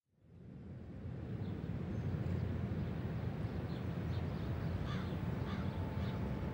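Ambient background fading in over the first second: a low steady rumble with a few short bird calls scattered through it.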